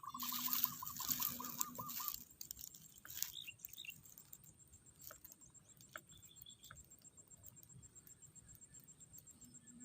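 A bird's rapid trill for about two seconds. Then faint scattered chirps and clicks, over a steady high, evenly pulsing insect drone.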